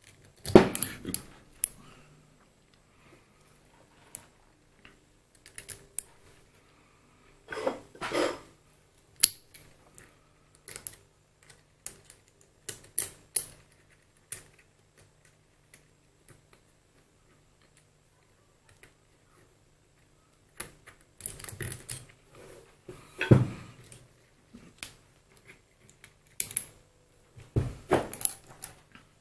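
Small steel lathe parts and hand tools clinking and knocking against each other and the bench in scattered bursts, during hand reassembly of a mini lathe's topslide.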